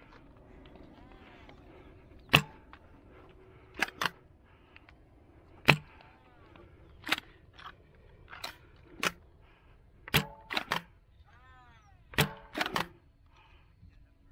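Spring-powered foam dart blasters firing: about a dozen sharp snaps, spaced a second or two apart and some in quick pairs, the loudest a little over two seconds in and near the middle. Faint distant shouting runs underneath.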